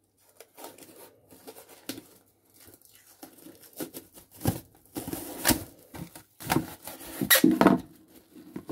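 Plastic cling film being pulled off its roll and stretched over a glass bowl, crinkling and crackling irregularly, louder in the second half.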